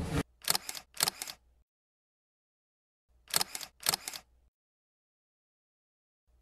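Camera shutter sound effect: two quick shutter clicks about half a second apart, heard twice, with dead silence between.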